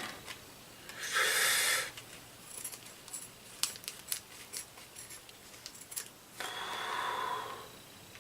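A plastic instant-ramen sauce packet being cut open with scissors and handled: a short crinkle about a second in, a scatter of small sharp clicks and snips, then a longer rustle near the end.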